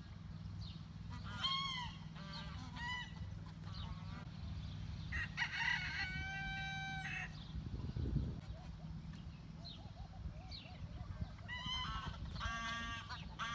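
Farmyard fowl calling: a rooster crows once, a long call starting about five seconds in, with short calls early on and a rapid run of honking calls near the end, over a steady low hum.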